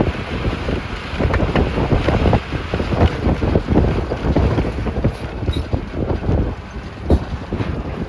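Ride noise inside a moving bus: the engine runs under a constant rattling and knocking of the body and fittings, with wind rushing over the microphone.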